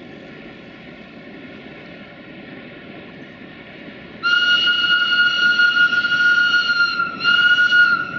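A Class 60 (060-DA / LDE2100) diesel-electric locomotive approaches with its engine running. About four seconds in it sounds a loud, single-pitched warning whistle for roughly three seconds, broken briefly just before it ends.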